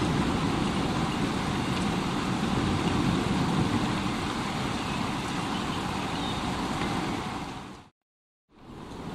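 Steady rain with a low rumble underneath. It fades out about eight seconds in to half a second of silence, then fades back in.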